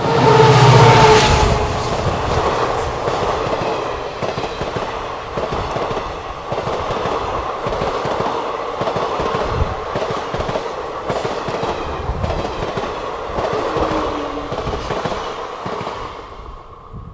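WDP4 diesel locomotive's EMD 16-cylinder two-stroke engine passing close while accelerating hard, loudest in the first two seconds. Then its passenger coaches roll by with a steady clickety-clack of wheels over rail joints, fading near the end as the last coach passes.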